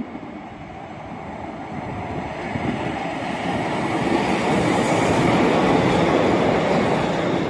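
Class 150 Sprinter two-car diesel multiple unit passing close by: its underfloor diesel engines and wheels on the rails grow steadily louder as it approaches, loudest about five to six seconds in as it goes past.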